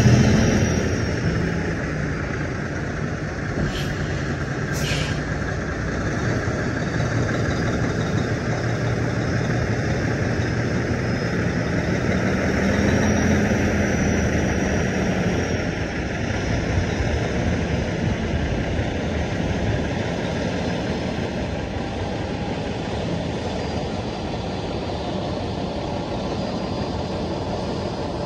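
Semi truck's diesel engine running with a steady low rumble, its pitch and level rising and falling once about halfway through as the truck maneuvers. Two faint short clicks come near the start.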